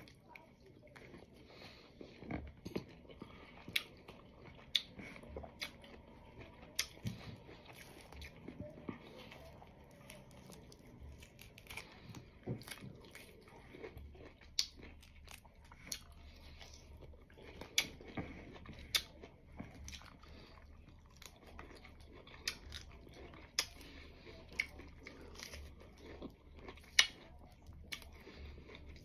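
A person chewing fruit close to the microphone, with many sharp, irregular mouth clicks and smacks, the loudest near the end.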